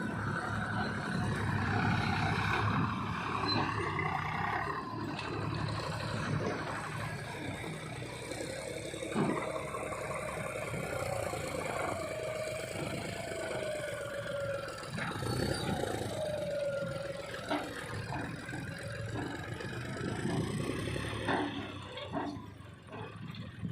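Heavy diesel machinery running steadily while loading mud. Through the middle a wavering whine rises and falls, and a few sharp knocks sound over it.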